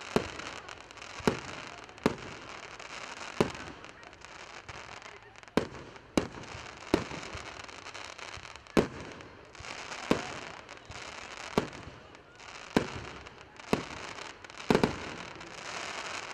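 Fireworks display: aerial shells bursting one after another, about fourteen sharp bangs at uneven spacing, roughly one a second, over a continuous crackling hiss from the glittering stars.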